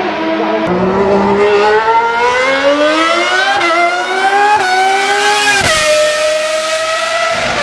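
1995 Ferrari 412 T2 Formula One car's V12 engine accelerating hard through the gears, its pitch rising steadily with three upshifts, the last one a big drop in pitch, after which it holds a steady high note.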